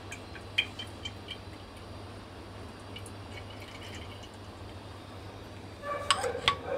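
Mustard oil poured in a stream into a kadai, with small ticks and drips as it lands. The stream thins out and stops, a low steady hum runs underneath, and a few louder knocks come near the end.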